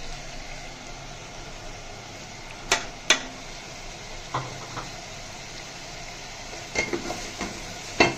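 A spoon clinking against a steel cooking pot of daal: scattered sharp clinks, the loudest about three seconds in and another just before the end, over a steady hiss.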